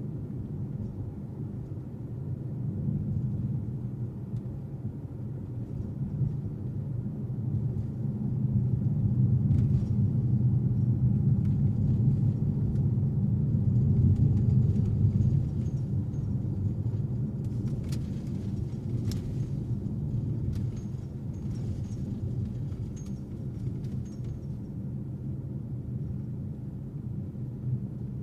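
Car driving, heard from inside the cabin: a steady low rumble of engine and road noise that swells for several seconds in the middle and then eases, with a couple of sharp ticks about two-thirds through.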